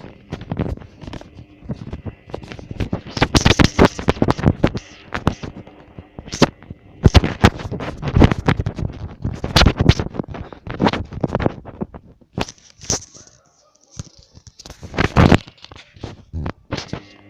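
Hoover Dynamic washing machine drum turning a wet load in the early part of a wash cycle: irregular swishing, scraping and knocking bursts as the laundry tumbles, with short lulls about twelve and fourteen seconds in.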